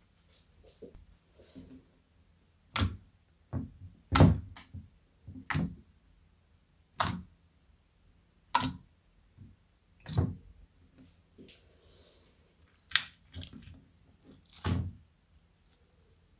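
Fingers pressing and poking thick clear slime in a glass dish, making sharp, separate pops about ten times, roughly every one to two seconds.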